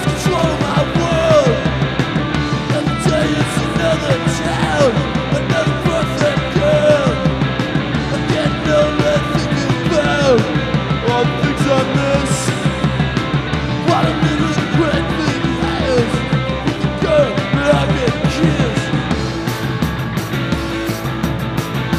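Live rock band playing loud, punk-leaning rock with no vocals. Short falling pitch glides recur about every second over the full band, and the cymbals grow denser near the end.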